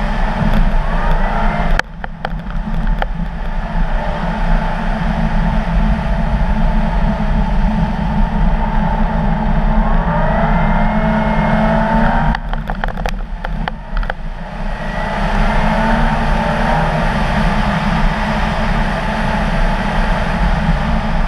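Car engine running hard and revving up and down as the car is driven fast on a snow-covered ice track, over a steady rush of tyre and wind noise. The engine sound drops away suddenly and briefly about two seconds in, and again for about two seconds past the middle, as if the throttle is lifted, before it picks up again.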